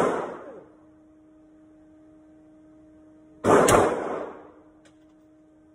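Two 9mm pistol shots from a Glock 19X, one right at the start and another about three and a half seconds later. Each crack rings out with a short echo off the walls of the indoor range.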